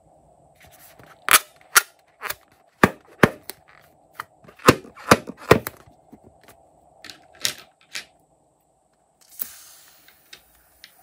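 Slime-filled rubber balloon being squeezed and handled: about a dozen sharp clicks and snaps at irregular intervals over a faint steady hum, with a brief hiss near the end.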